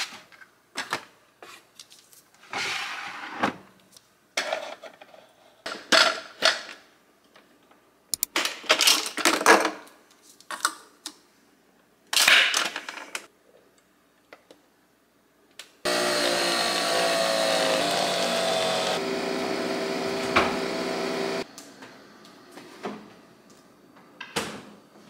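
Sharp clicks and clatter of coffee capsules being handled and a Nespresso Vertuo machine's head being opened and shut, then about five seconds of the machine running with a steady whirring hum from about 16 seconds in, followed by a few softer knocks.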